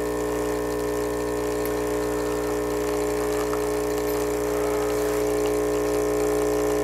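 Nespresso Citiz capsule machine's vibratory pump running steadily with a loud, even hum as it pushes water through the capsule to brew a lungo.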